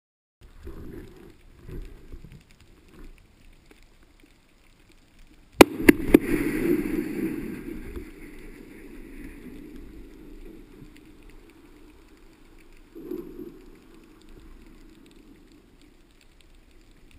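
Boom of a dynamite blast set off for blast fishing, heard underwater: a sharp crack about five and a half seconds in with a second hit just after, then a long fading rumble. A smaller thump comes near the end.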